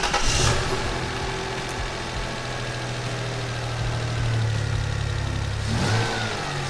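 A Toyota 3.4-litre V6 (5VZ-FE) idling steadily, just after starting, on its first run after a new timing belt and water pump. It sounds really good, a sign the belt timing is right.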